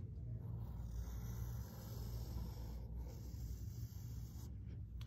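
Faint scratching of a wooden pencil drawn lightly across paper as an outline is traced, over a steady low hum.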